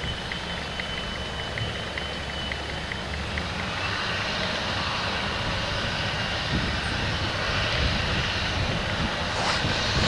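Challenger MT775E rubber-tracked tractor working under load, pulling a 10-furrow plough through stubble: a steady engine and machinery rumble that grows louder as the tractor comes closer.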